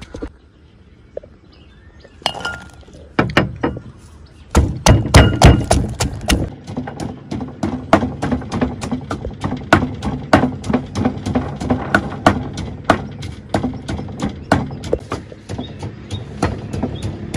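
Wooden pestle pounding in a wooden mortar: a run of sharp thuds beginning about two seconds in, heaviest for a couple of seconds, then settling into a steady beat of about two to three strikes a second.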